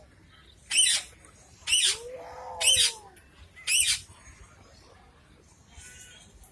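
Parrots screeching: four loud, harsh squawks about a second apart, with a lower arching call in the middle, then only faint calls.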